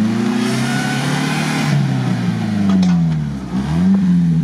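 Suzuki Vitara off-road 4x4 engine revving as it drives through snow and mud, the pitch rising and falling several times. A rushing noise rides over it for about a second and a half near the start.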